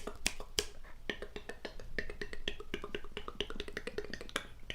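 Close-miked mouth sounds: rapid wet tongue and lip clicks, a few at first, then several a second from about a second in.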